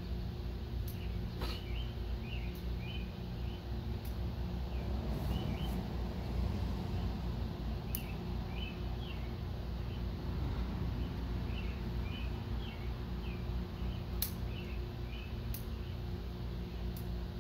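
Small birds chirping again and again over a steady low background hum, with a few sharp clicks scattered through.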